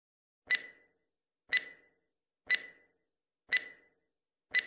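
Countdown timer sound effect ticking five times, one tick a second. Each tick is a sharp click with a brief high ring that dies away quickly.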